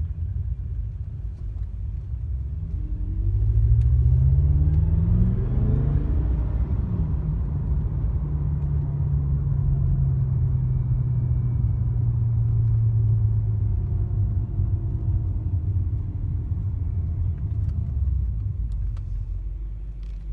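BMW car engine rising in revs for a few seconds, then running at a steady speed, with a faint high whistling tone over the engine sound in the middle part.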